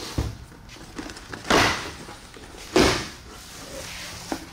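A large corrugated cardboard box being opened with a knife, its flaps cut and pushed back: four separate scraping, thudding bursts of cardboard, the two in the middle the loudest.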